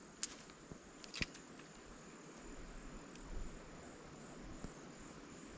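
Faint steady high-pitched chirring of insects such as crickets, with a few sharp clicks in the first second or so.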